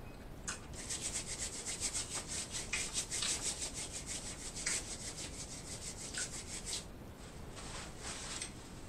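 Hands rubbing together and being wiped with a napkin close to the microphone: a fast run of dry, scratchy rubbing strokes, several a second, thinning out near the end.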